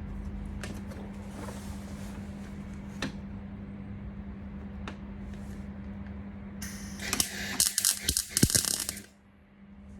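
MIG welder tacking a steel repair panel: a steady low hum with a few light clicks, then from about seven seconds in a couple of seconds of crackling, spitting arc that stops abruptly.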